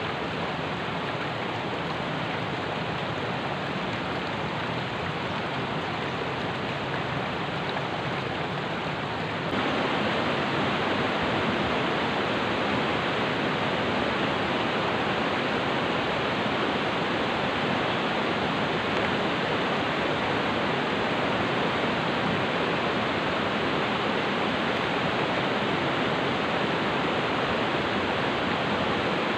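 Steady rush of a shallow river running over rocks in small rapids, louder from about nine seconds in.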